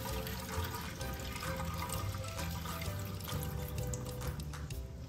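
Background music over water pouring and draining as soaked glutinous rice is tipped from a glass bowl into a metal sieve in a stainless steel sink.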